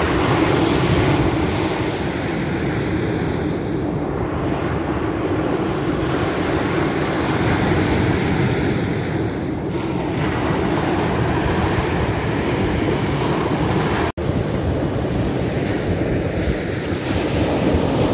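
Baltic Sea surf washing onto the shore in a steady, slowly swelling rush, with wind buffeting the microphone. The sound cuts out for an instant about two-thirds of the way through.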